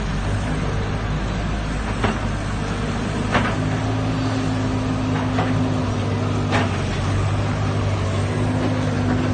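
Hydraulic excavator's diesel engine running steadily under load, a higher steady tone joining in from about three and a half seconds. Several sharp knocks sound as the bucket works the soil and rocks.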